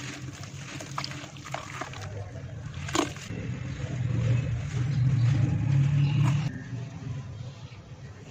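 Hands squeezing and crumbling wet red dirt, with crackly crumbling and squelching. A louder low rumble runs for a couple of seconds in the middle and cuts off sharply.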